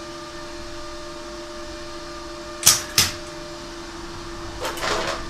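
Electric stick welder striking its arc: two short, sharp arc strikes about half a second apart just past halfway, then near the end a longer burst of about half a second, the first test welds with a new machine. Under them the welder's cooling fan hums steadily, quite loud.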